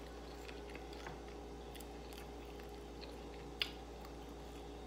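Faint chewing of thick-cut potato fries close to the microphone, with scattered soft mouth clicks and one sharper click about three and a half seconds in.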